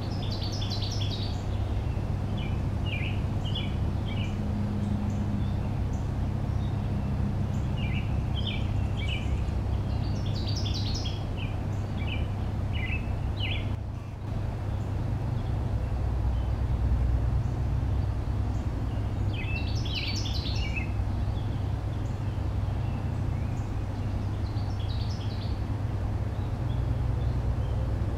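Songbirds singing short chirping phrases every few seconds over a steady low rumble, which is the loudest sound throughout.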